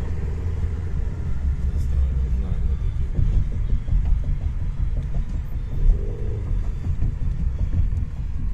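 Steady low rumble of a car's engine and road noise, heard from inside the cabin while driving slowly in traffic.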